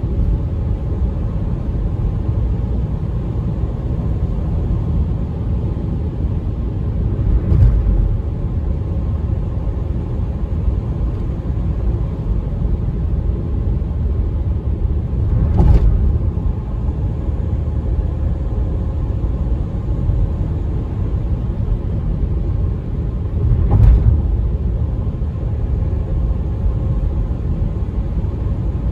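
Steady low road rumble inside a car cruising on a smooth highway, with a brief thump three times, about eight seconds apart.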